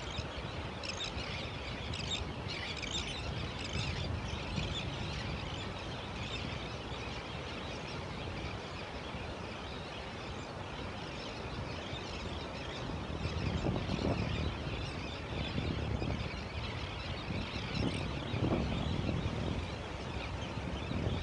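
Steady ocean surf with a flock of terns and gulls calling in quick high chirps, densest in the first few seconds and sparser afterwards. The surf swells to a louder low rush about two-thirds of the way through.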